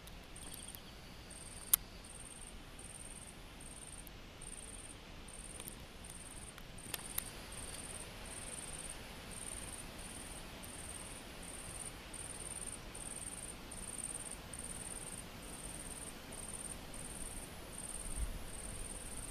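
An insect chirping in a steady rhythm of short, very high-pitched chirps, nearly two a second, with one sharp click about two seconds in.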